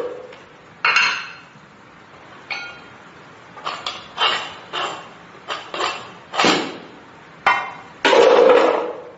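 Metal gym weight plates knocking and clanking as they are handled and set down: about ten separate sharp clanks with short ringing, the longest and loudest clatter near the end.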